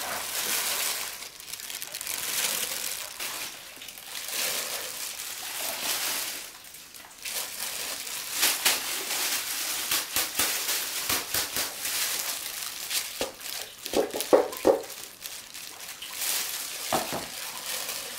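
Crinkling rustle of plastic-gloved hands handling soaked sticky rice and jackfruit pieces at a wooden rice steamer, with grains shifting and spilling, and light taps and scrapes from the second half on. A few brief squeaky sounds come about two-thirds of the way in.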